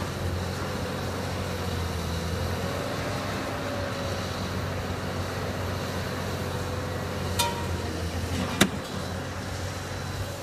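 Excavator engine running steadily, with a slowly wavering whine over the hum and two sharp knocks near the end, the second louder.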